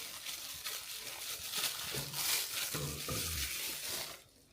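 Packaging rustling and crinkling as a smoke alarm is unwrapped from its box. The noise stops abruptly about four seconds in.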